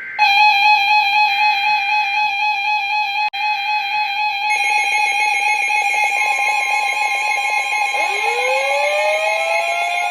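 Emergency Alert System alarm tones: a loud, steady electronic tone made of several fixed pitches together. More tones join about four seconds in, and rising pitch sweeps come in about two seconds before the end.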